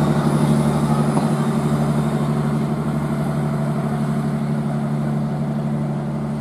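Argo Sindoro passenger train rolling past, its coaches going by with a steady low engine drone that slowly fades as the train pulls away.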